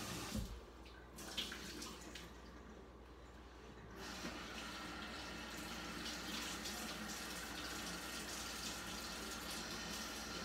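Kitchen tap water running into a sink. It stops about half a second in, with a couple of light knocks, and starts again about four seconds in, then runs steadily.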